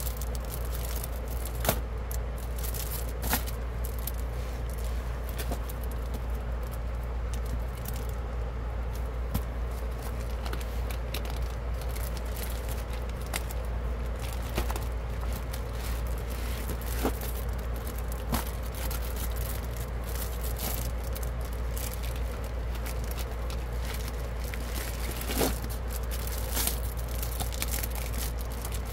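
Clear plastic sleeves and bubble-wrap packaging crinkling and rustling as magazines are handled, with a few sharper crackles, over the steady hiss of heavy rain.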